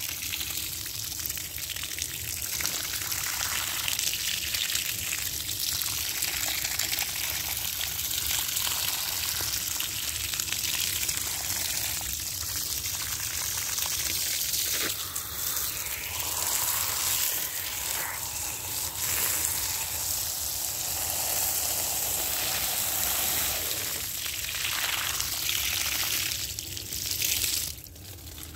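Water gushing steadily from a clear plastic hose and splashing onto brickwork and grass. The rush briefly drops away near the end.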